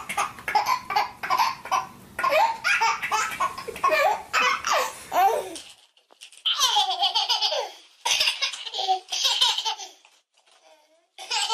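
A baby laughing hard in rapid, repeated bursts. About six seconds in it changes to a toddler's higher-pitched laughter, coming in separate fits with short pauses between.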